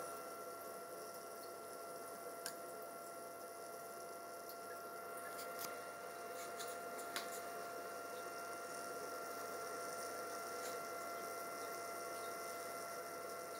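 Small cooling fan in an electronics enclosure running with a steady hum and a thin whine, with several faint clicks scattered through.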